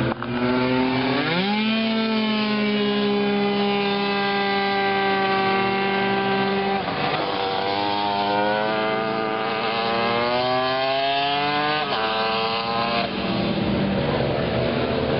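Tuned two-stroke racing scooter engine running hard on track: its pitch climbs sharply about a second in and holds, drops about halfway through, then rises steadily again in gear before falling away near the end into a rougher blend of distant engines.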